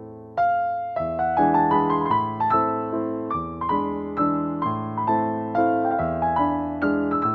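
Background piano music: a gentle melody of struck notes and chords, each fading away, in a steady pulse that fills out and gets louder about half a second in.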